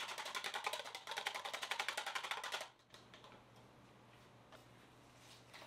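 Wire whisk beating a beaten egg in a small bowl, fast even strokes about ten a second, stopping about two and a half seconds in. After that only a faint steady hum remains.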